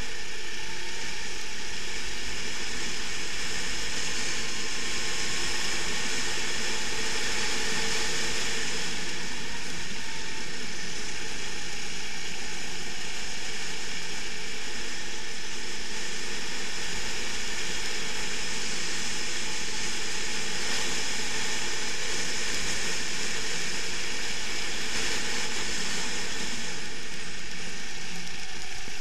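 Racing kart engine running continuously at speed during a lap, with a steady hiss of wind over the onboard microphone.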